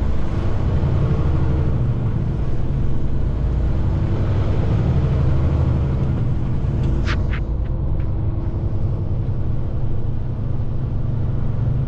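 Semi truck's diesel engine running steadily, a low drone heard from inside the cab, with a couple of short clicks about seven seconds in.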